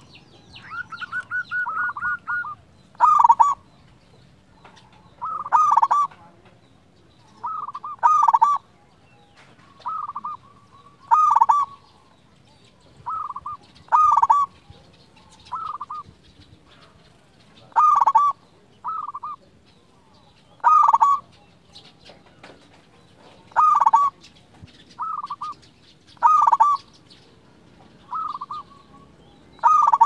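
Zebra dove (perkutut) cooing: short rolling phrases repeated every two to three seconds, some louder than others, with one longer held note about a second in.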